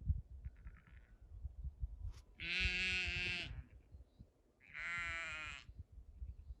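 A sheep bleating: two long bleats a little over a second apart, with a faint short bleat near the start. Low dull knocks sound underneath.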